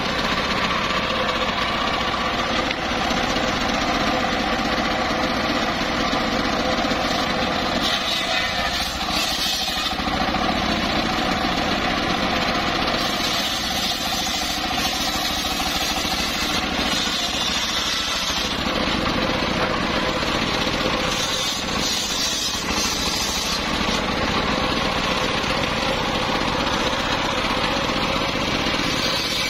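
Engine-driven homemade circular saw bench running steadily while its large blade rips teak logs lengthwise. A harsher, hissing cutting noise comes and goes several times as the wood is fed through the blade.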